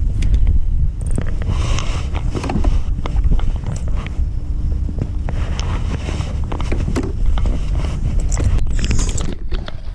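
Wind rumbling on the microphone, with scattered scrapes and clicks of handling and a faint steady hum for a few seconds.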